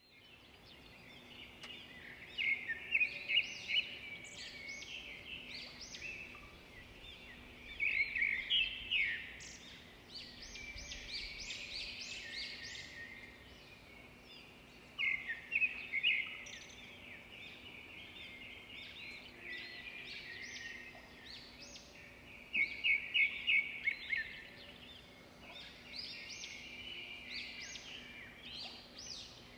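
Songbirds chirping and trilling in quick, high-pitched bursts that come back about every seven seconds, with quieter chirps between, over a faint steady hum.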